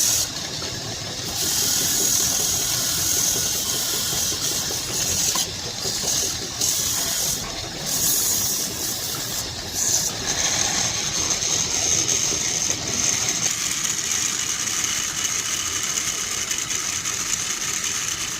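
A woodworking power tool running with a steady hissing noise. The high hiss drops out briefly several times in the first half, then runs steadily from about ten seconds in.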